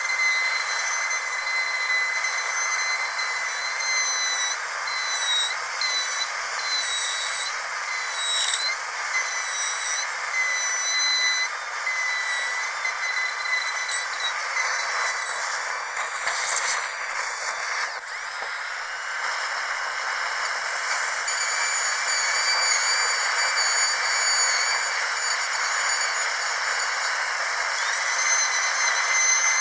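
Dentist's drill running with a steady high-pitched whine over a hiss. The pitch dips briefly about eight seconds in, a sharper burst of hiss comes about halfway through, and the whine shifts slightly in pitch soon after.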